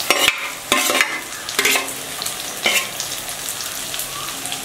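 Potatoes and onions frying in hot oil in a pan, sizzling, while a spatula stirs and scrapes against the pan in several separate strokes.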